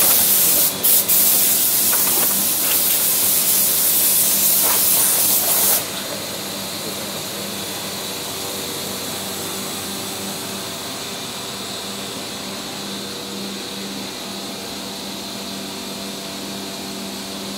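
A loud, steady hiss of escaping air that cuts off suddenly about six seconds in, followed by a quieter steady hum of running workshop machinery.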